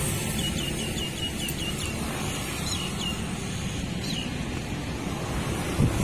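A small bird chirping in a quick run of short high notes, then a few more chirps, over a steady low outdoor rumble. A single thump sounds near the end.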